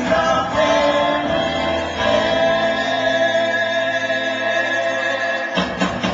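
Live rock band playing with singing. A chord is held from about two seconds in, then a few drum hits come near the end.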